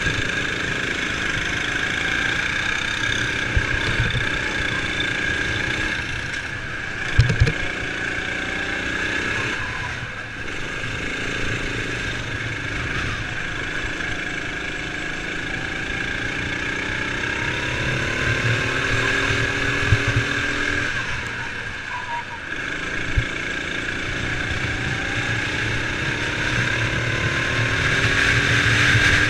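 Sodi RX7 racing kart's engine heard from on board, climbing in pitch as it accelerates out of corners and along the straights, then falling away as it slows into the turns. A few sharp knocks cut through it, loudest about seven seconds in.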